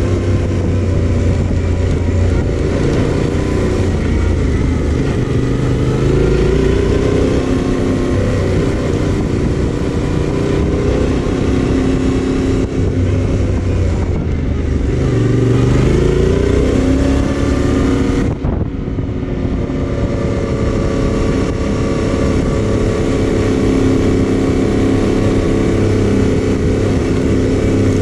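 A 2021 Yamaha Ténéré 700's parallel-twin engine running while the bike is ridden. The engine note rises and falls several times as the throttle opens and closes, with a short dip about eighteen seconds in.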